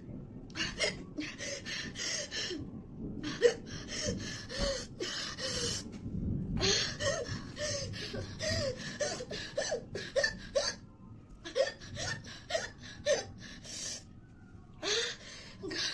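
A woman gasping and panting hard, with short voiced hiccups and whimpers between breaths, her mouth and throat burning from an extremely hot chili chip.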